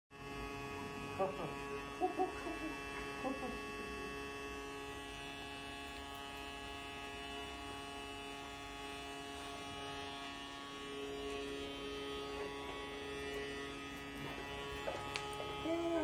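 Toy vacuum cleaner's small battery-powered motor running with a steady electric hum.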